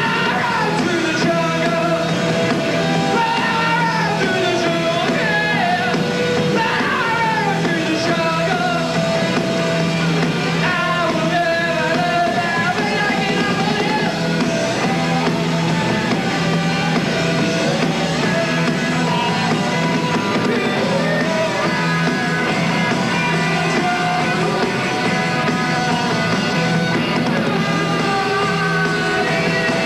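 Rock band playing live, a male singer singing over the band, on a rough, poor-quality concert recording.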